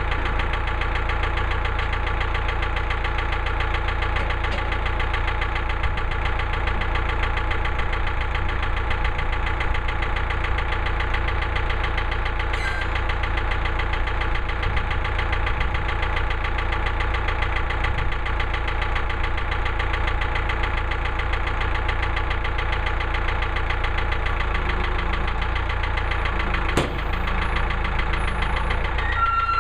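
Portable bandsaw sawmill's gasoline engine running steadily at an even speed.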